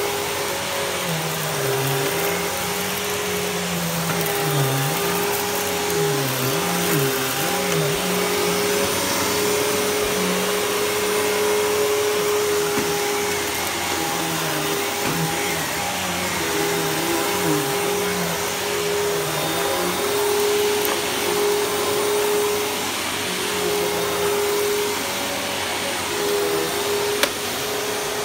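Riccar bagged upright vacuum cleaner running on carpet: a steady motor whine over a rushing air hiss, with a lower hum that wobbles and dips again and again as it is worked. A single sharp click near the end.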